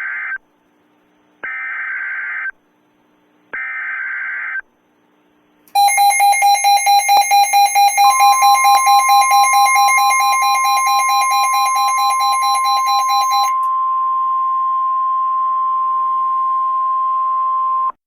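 Emergency Alert System tones. Three short warbling SAME data-header bursts come first, then a loud electronic alert tone pulsing about four times a second. About two seconds after the pulsing starts, a steady single-pitch alarm tone joins it, the 1050 Hz NOAA Weather Radio warning tone. The pulsing stops about halfway through, and the steady tone holds alone until just before the end.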